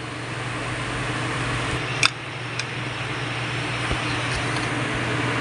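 Steady fan-like hum and hiss that grows slightly louder, with a single sharp click about two seconds in.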